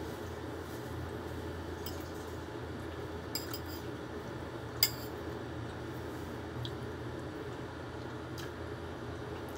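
A metal spoon clinking against a dish a few separate times while eating, the sharpest clink about five seconds in, over a steady low hum.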